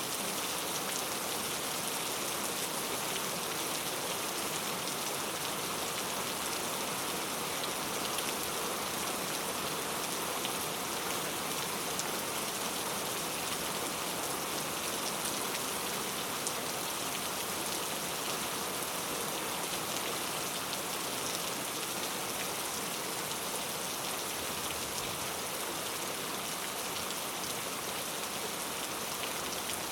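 Steady rain falling, a dense patter of drops on a surface.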